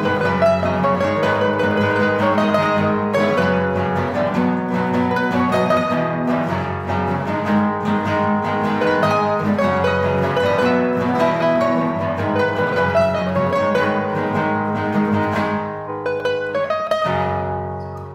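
Classical guitar ensemble, about ten nylon-string guitars playing an arranged pop song together, plucked notes and chords ringing over a bass line. About sixteen seconds in the playing thins and softens, then comes back in a second later.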